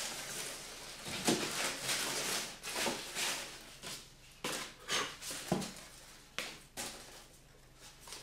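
Paper and tissue paper rustling and crinkling as hands rummage in a box and pull out paper flyers, in a run of irregular short crackles with a few sharper clicks in the middle.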